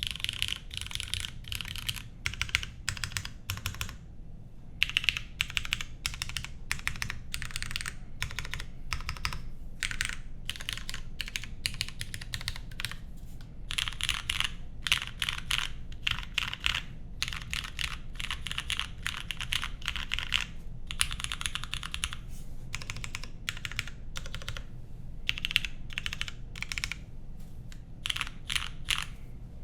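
Typing on a compact ergonomic mechanical keyboard with lubed, filmed and spring-swapped Cherry MX Black linear switches on a polycarbonate plate under GMK keycaps. Fast runs of keystrokes are broken by a few brief pauses.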